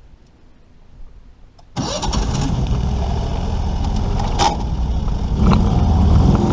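Longtail mud motor starting up: quiet at first, then the engine catches abruptly a little under two seconds in and keeps running loudly and steadily.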